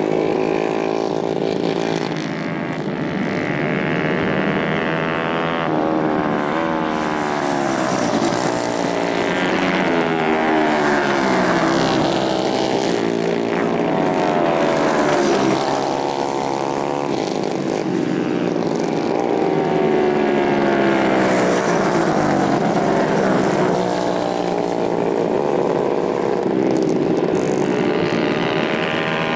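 Several 150cc racing kart engines running hard as karts pass one after another on a dirt track. Their overlapping pitches climb and fall with the throttle, over a steady loud drone.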